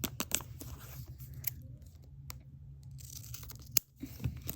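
Small plastic packet crinkling, with a handful of separate sharp clicks as miniature toy ice cubes are handled and dropped into a tiny plastic cup.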